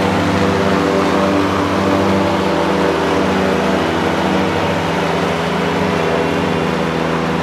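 Ventrac 4500Z compact tractor's gasoline Kubota engine running steadily under load while it drives an 8-foot front mower deck through grass.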